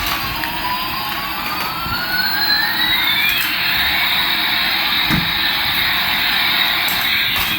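Electronic jet-engine sound effect from a toy Airbus A380: a steady rushing hiss with a whistling tone that glides down and then back up during the first three seconds.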